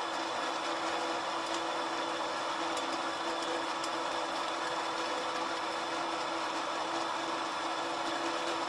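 Electric-motor-driven flat die feed pellet mill running steadily. It makes a constant whir with a steady hum, and there are a few faint ticks.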